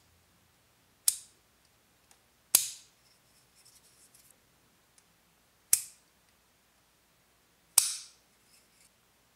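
A plastic spring clamp's jaws snap shut four times with a sharp clack, each time slipping off the rounded part they were closed on, a second and a half to three seconds apart. The clamp cannot keep its grip.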